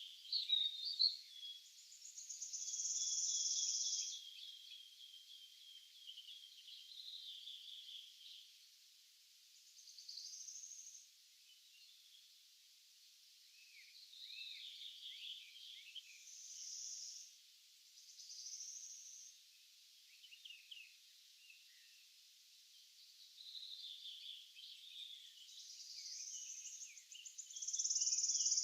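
Several songbirds singing in a morning forest chorus, with short chirps, a long high trill in the first few seconds and loud high buzzy phrases about three seconds in and again at the very end.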